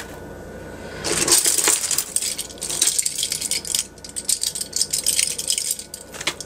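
Costume jewelry pieces clinking and jangling against each other, with the crinkle of a plastic zip-top bag, as a hand rummages in the bag and lifts out a metal chain necklace. The dense run of small clicks starts about a second in.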